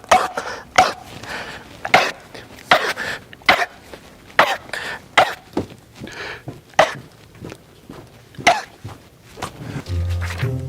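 One person after another of loud, exaggerated fake sneezes: about a dozen short, explosive bursts, roughly one a second. Music comes in near the end.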